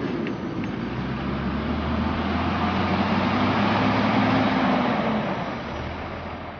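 A heavy vehicle's engine running steadily with a low hum. It grows a little louder in the middle and fades near the end.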